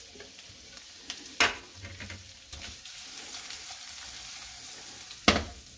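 Corn, garlic, shallots and celery sizzling in hot butter in a frying pan while the pan is tossed. There are two sharp knocks, about a second and a half in and near the end.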